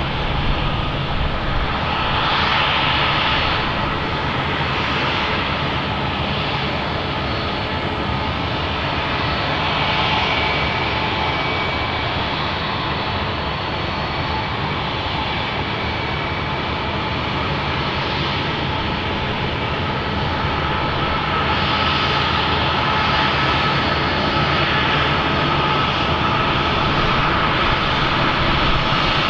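Airbus A319-132 jet airliner's IAE V2500 turbofan engines running, a steady loud jet rumble with a whining tone, growing a little louder in the last third.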